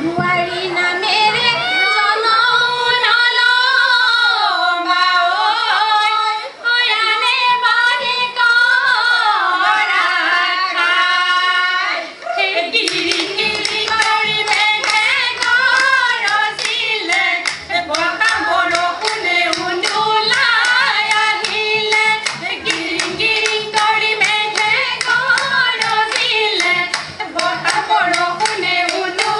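Women singing a Jeng Bihu song, the melody bending and ornamented. About twelve seconds in, steady rhythmic clapping joins under the singing.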